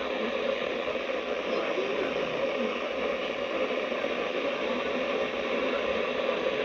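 Steady static hiss from a weather radio receiver, with no clear voice or tone coming through.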